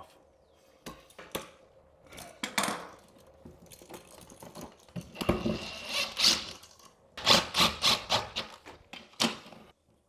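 Clicks and taps of wires and an electrical receptacle being handled, then a cordless drill driving the receptacle's mounting screws into the wall box, with a run of sharp clicks about three a second near the end.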